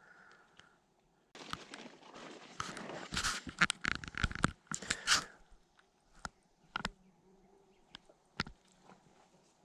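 Dry twigs and brush crunching and snapping in a dense crackling run of a few seconds, followed by a handful of scattered snaps.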